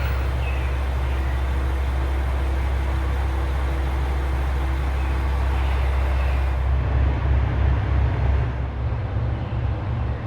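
Diesel railcar engine running, a steady low rumble under a hiss. About seven seconds in, the hiss fades and the rumble turns uneven and pulsing.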